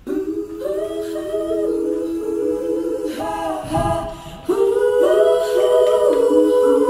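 Music of layered voices singing sustained a cappella chords, several pitches held together. Just before four seconds in the chord drops away over a low thud, then a new, louder chord comes back in.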